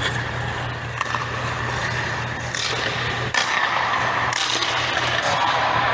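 Ice skate blades scraping and carving across rink ice in repeated strides, in swells that grow louder about halfway through. A steady low hum runs underneath.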